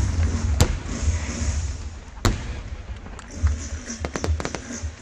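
Fireworks going off: single sharp bangs about half a second and two seconds in, then a quick run of crackling pops late on, over a steady low rumble.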